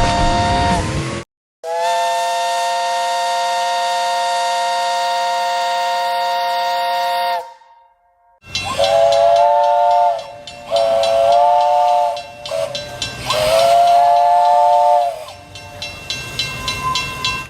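Steam train whistle sounding a chord of three notes: the tail of one blast, then a long blast of about six seconds, then three shorter blasts over hissing steam. The sound cuts off abruptly between pieces, like separate recordings joined together.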